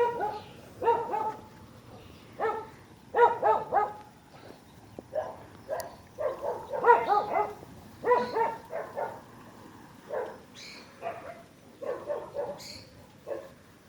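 Dog barking repeatedly in quick runs of several barks, with short pauses between runs.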